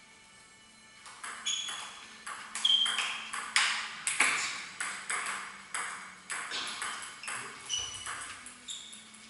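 Table tennis rally: the ball clicking off the bats and bouncing on the table in quick, irregular taps, starting about a second in and loudest in the middle. Some bounces carry a short, high ring.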